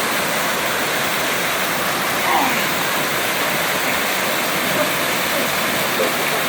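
Waterfall pouring into a pool, a steady rushing noise of falling water.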